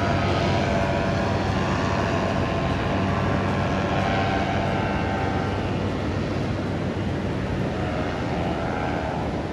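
A powered paraglider's (paramotor's) engine and propeller droning overhead, growing fainter, over the steady hiss of breaking surf.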